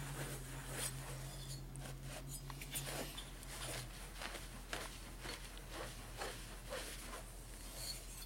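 Cloth wiping the inside of a freshly honed Harley Evolution cylinder bore: a run of short, scratchy rubbing strokes with light handling taps.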